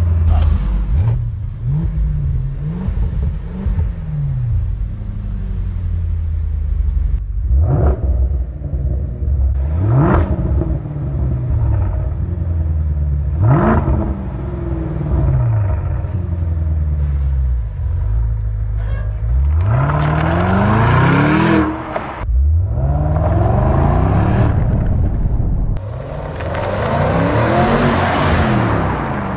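Range Rover P530's 4.4-litre BMW twin-turbo V8 running through a QuickSilver Sound Architect stainless steel valved exhaust. It idles between revs, with a few quick blips at the start, single sharp revs about eight, ten and thirteen seconds in, then three longer pulls from about nineteen seconds that rise and fall in pitch.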